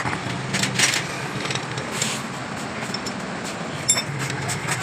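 Metal tools clicking and clattering during motorcycle front-end repair work, with a few short rasps, over a steady low hum.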